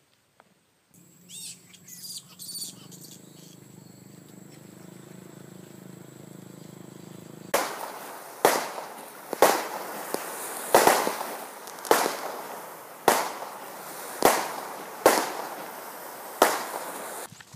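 Aerial fireworks bursting in the night sky. A low steady hum and a few sharp crackles and chirps start about a second in; from about seven and a half seconds on comes a string of about ten loud bangs, roughly one a second, each with a short echo.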